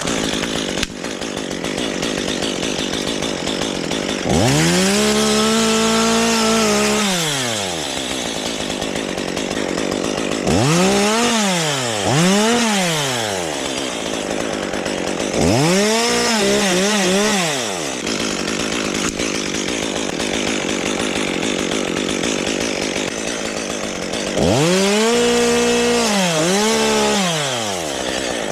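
Two-stroke chainsaw idling and revved to high speed four times. Each time the pitch rises fast, holds for a second or three with small dips, then falls back to idle.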